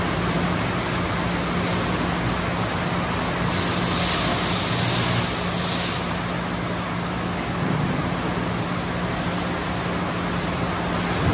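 CapSnap automatic 5-gallon bottle washer running: a steady machine hum under a constant wash of noise. A louder high hiss comes in about a third of the way through and lasts a couple of seconds.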